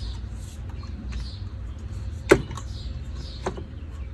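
A sharp knock about two seconds in and a lighter one a second later: the pressure washer's spray gun knocking against its gun holder as it is pushed in, over a steady low rumble.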